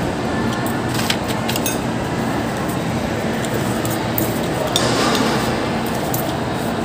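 A metal spoon and fork clinking and scraping against a cast-iron serving bowl while rice is mixed, with a few sharp clinks about a second in and again around four to five seconds, over steady background noise.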